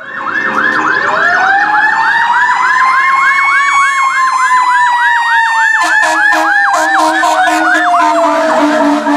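Fire engine siren on a fast electronic yelp, about four sweeps a second. Under it a second siren tone rises slowly to a peak and then glides back down. From about six seconds in, short repeated horn blasts join.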